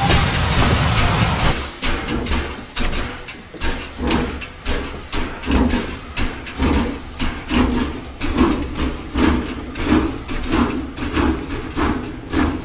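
Toy steam train running on its track: a hiss for about the first second and a half, then a steady chugging rhythm of short knocks, a little under two a second.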